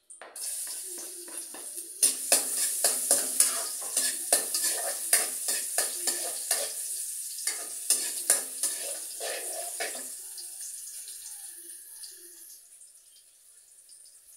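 Food sizzling in a hot wok on a gas burner while a spatula stirs and scrapes against the metal pan in quick strokes for about eight seconds; then the stirring stops and the sizzle dies down.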